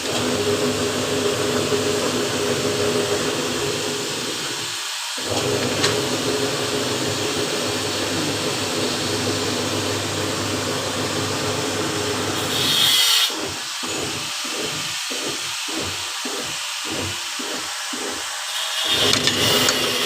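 An electric workshop machine or power tool running with a steady hum, cutting out briefly about five seconds in. From about two-thirds of the way through, its low hum pulses on and off about twice a second, with short bursts of high hiss.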